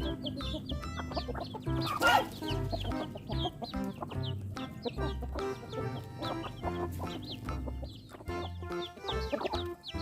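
Free-range chickens clucking over background music with a steady bass line, with one louder burst about two seconds in.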